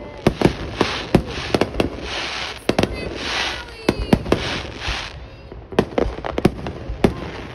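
Aerial fireworks display: shells bursting overhead in a quick, irregular series of sharp bangs, with stretches of crackling hiss from the bursts in the middle.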